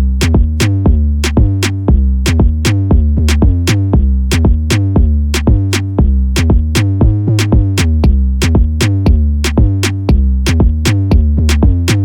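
Electronic background music: a drum-machine beat of crisp, evenly spaced hits, about three to four a second, over a deep sustained bass line that changes note every couple of seconds.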